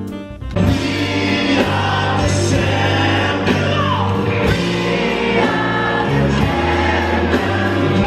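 Music with singing: a full-band song comes in abruptly about half a second in, after a short passage of held instrumental notes.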